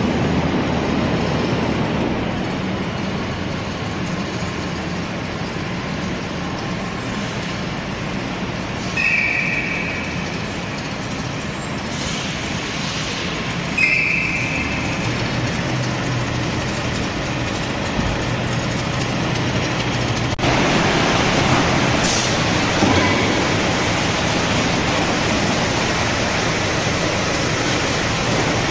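Kitchen-waste collection truck's engine running steadily as it reverses up to the receiving hopper, with two short high beeps a few seconds apart. About two-thirds of the way through a louder, fuller noise sets in and continues.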